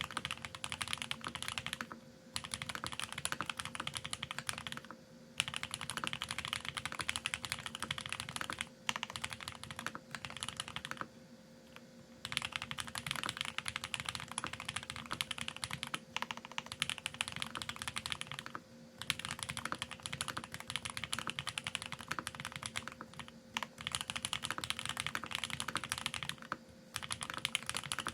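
Fast, continuous typing on a Geonworks F1-8X mechanical keyboard with lubed TTC Speed Silver v2 linear switches, an aluminium plate and GMK ABS keycaps. The runs of keystrokes are broken by several short pauses, the longest about eleven seconds in.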